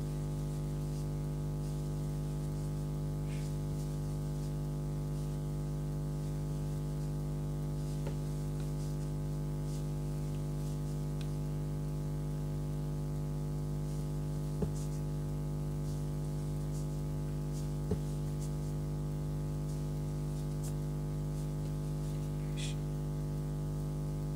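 Steady low electrical-type hum with several even overtones, unchanging throughout, and two faint clicks about two-thirds of the way through.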